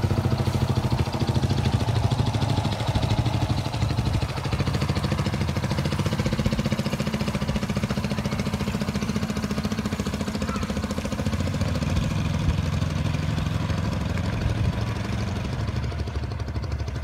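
Small motorcycle engine running steadily at low speed.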